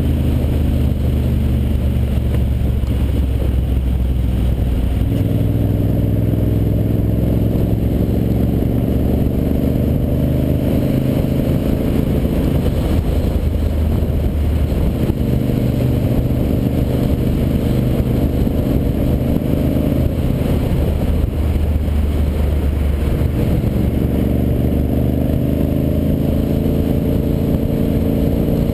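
Ducati Monster 800's air-cooled L-twin engine running under way, with a steady loud note. The engine pitch steps up and down several times as the bike speeds up and eases off.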